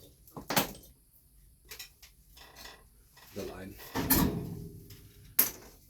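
Tools and small parts handled on a workbench: a sharp click about half a second in, a longer run of clattering and knocking around the middle, and another sharp click near the end.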